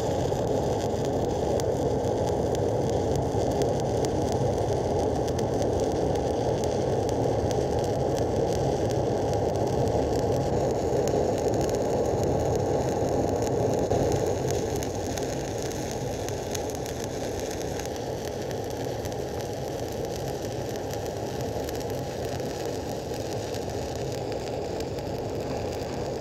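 Stick (shielded metal arc) welding arc burning steadily as the cap pass is run, the electrode dragged along the toe of the previous bead. A little past halfway it becomes somewhat quieter and keeps going.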